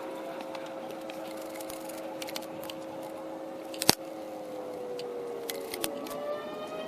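Background music of sustained held tones that slowly slide lower in pitch, with a few sharp clicks over it, the loudest about four seconds in.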